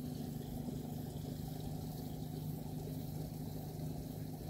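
A steady low machine hum, like a motor or engine running without change.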